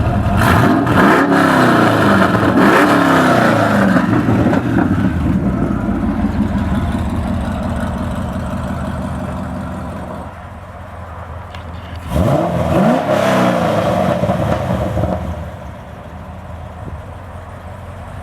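Chevrolet Corvette's LS3 V8 revved with the bimodal muffler valves and exhaust cutouts open, the exhaust running unmuffled: several quick blips in the first few seconds, then idling, and another rev about twelve seconds in before it drops back to idle.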